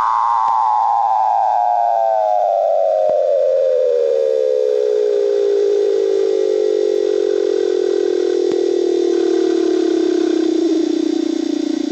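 Weddell seal's long underwater trill: one pitched call that glides steadily down from high to low over many seconds and pulses quickly in its later part. It is the seal's call at a competing seal coming up to its breathing hole.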